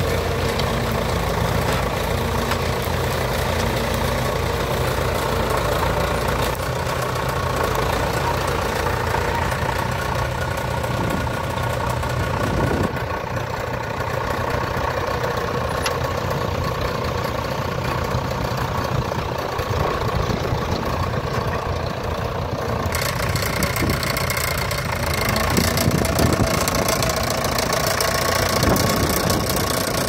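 Diesel engine of a vintage Fordson Dexta tractor running steadily.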